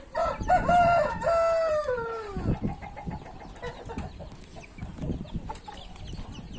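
A rooster crows once, a call of about two and a half seconds that ends in a long falling note. It is followed by wind buffeting the microphone.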